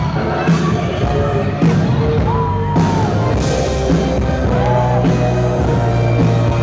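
Live rock band playing loud: electric guitar, drums and a lead vocal, with the singer's pitch gliding between notes.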